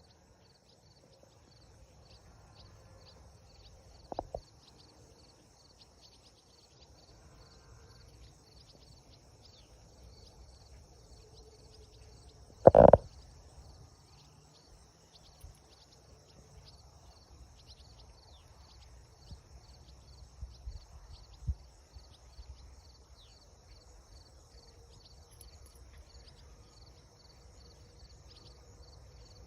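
Outdoor nature ambience: a steady high-pitched insect chirping in even, repeating pulses over a low rumble. A loud, short unidentified sound stands out about 13 seconds in, with a smaller one about 4 seconds in and a few faint ones around 20 seconds.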